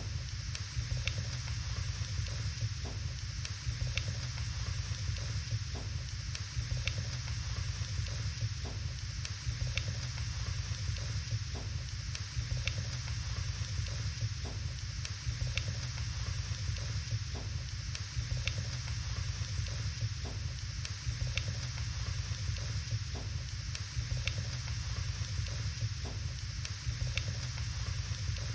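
Wood logs burning in a fireplace: a steady hiss over a low rumble, with sharp crackles and pops at irregular intervals, roughly one every second or two.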